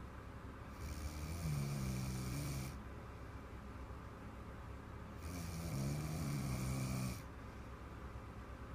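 A young girl's big snore: two long snores, each about two seconds, roughly four seconds apart, with quieter breathing between them.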